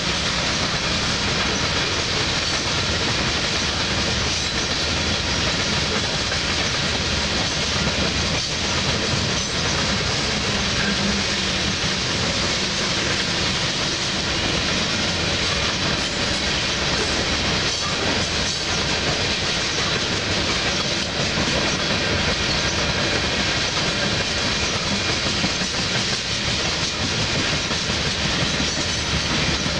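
Freight train of loaded coal hopper cars rolling steadily past, with the continuous noise of steel wheels on rail and an occasional clack.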